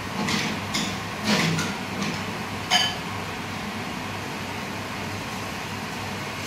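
A metal spoon clinks and taps against a dish about five times in the first three seconds, the last clink ringing briefly, over a steady background hum.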